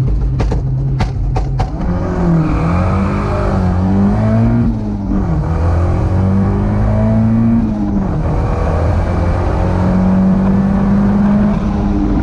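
Turbocharged Toyota MR2's four-cylinder engine revving, its pitch rising and falling repeatedly, with four sharp pops in the first two seconds.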